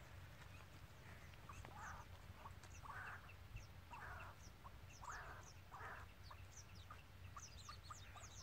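Faint, high, brief chirps of small birds, repeated many times, over a series of short rasping sounds about a second apart and a steady low rumble.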